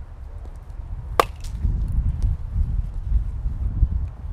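A baseball bat hitting a pitched ball: one sharp crack about a second in, followed by a fainter click, over a steady low rumble.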